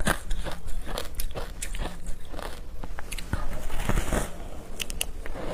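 Close-up crunching of teeth biting and chewing a ball of frozen shaved ice, with repeated sharp crackles and crunches.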